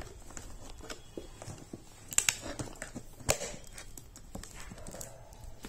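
A small blade cutting and scraping through plastic wrap and packing tape on a cardboard box: scattered scrapes, crinkles and sharp clicks, the sharpest about two and three seconds in.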